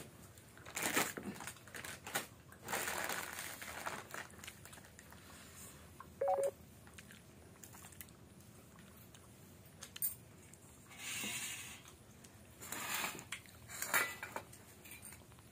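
Eating rice by hand from a steel plate: fingers mixing and scooping rice and dal against the plate, with chewing, in short scattered bursts. About six seconds in there is a brief single-pitched beep.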